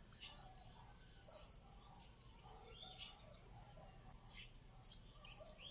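Faint bird chirping: a few runs of four or five short high chirps, about four a second, over a steady faint high-pitched hum.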